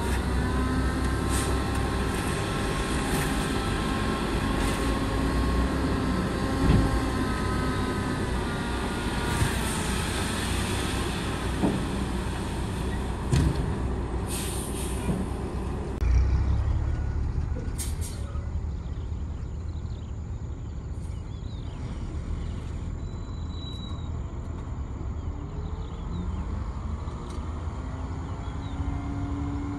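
Heavy dump truck diesel engines running while the trucks tip their beds to dump soil, with a few knocks and short bursts of air hiss. The engine sound drops back after about halfway, and near the end an engine rises in pitch as it is revved.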